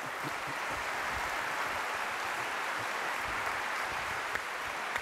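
Audience applauding steadily in a large hall, welcoming an introduced guest.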